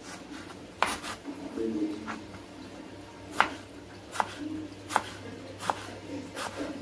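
Kitchen knife slicing through tomatoes onto a cutting board: about seven sharp knocks of the blade striking the board, spaced unevenly roughly a second apart.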